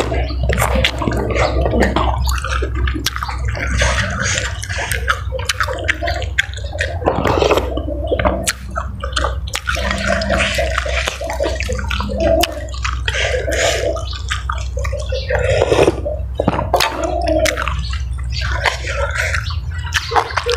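A person chewing food close to the microphone, with wet mouth smacking and many sharp irregular clicks, over a steady low hum.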